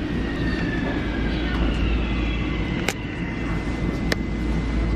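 Passenger train running, heard from inside the carriage: a steady low rumble with a faint high whine that slowly falls in pitch, and two sharp clicks about three and four seconds in.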